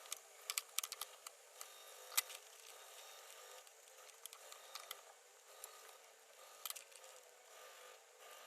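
Faint, scattered clicks and light taps: a cluster about half a second to a second in, a sharper click about two seconds in, and a few more later.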